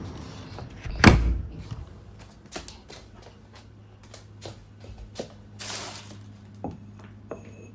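A single sharp knock about a second in, then scattered light clicks and taps and a short rustle, over a low steady hum.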